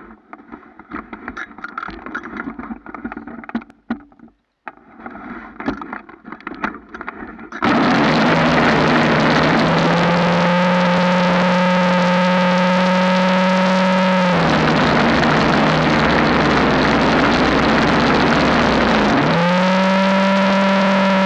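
Several seconds of muffled, choppy rustling and knocking. Then, about seven seconds in, a snowblower engine comes in loud and steady with a harsh, distorted drone, its pitch sagging briefly a few times near the end as it works.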